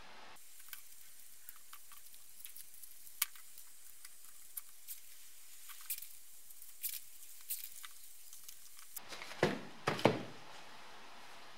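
Masking tape being pulled off the roll, torn and pressed down onto a plastic air vent: light crackling and scattered ticks, with a few louder handling sounds about nine to ten seconds in.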